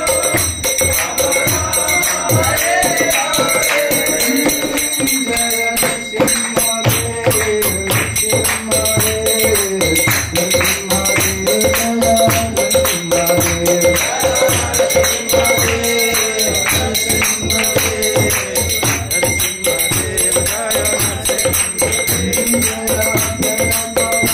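Devotional kirtan: a group singing in chorus with fast rhythmic hand clapping and ringing metal percussion.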